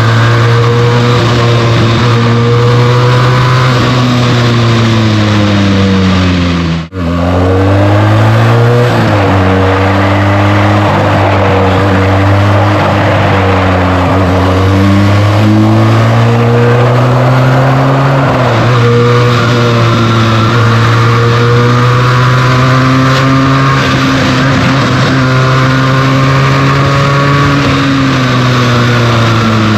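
Benelli TNT 300's 300 cc parallel-twin engine through its stock exhaust, running under way while riding, its revs falling and climbing again several times as the throttle and gears change. The sound briefly cuts out about seven seconds in.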